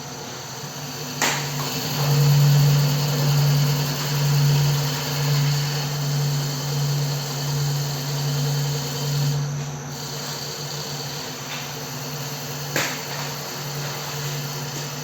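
CNC wood lathe running: a steady machine hum that swells and fades about once a second for much of the time, then evens out, with a sharp click near the start and another near the end.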